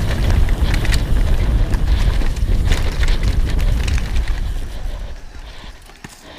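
Mountain bike descending a dirt trail at speed: wind buffeting the camera microphone, with tyre rumble and scattered knocks and rattles from the bike over the ground. The noise dies down about five seconds in.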